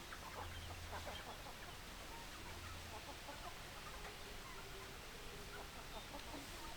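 Chickens clucking: scattered short calls from several hens, busier in the first second and again near the end.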